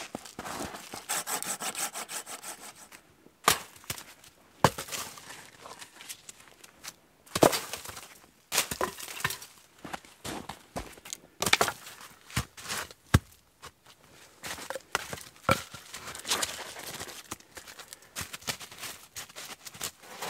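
Dry sticks snapping and knocking against each other, in sharp irregular cracks with rustling between, as wood is broken up and laid down on snow as a bed for a small stove.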